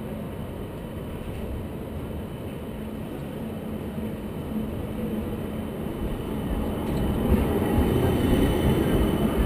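Midland Metro CAF Urbos tram running on street track, approaching and passing close by. Its low rumble grows louder from about seven seconds in as it nears.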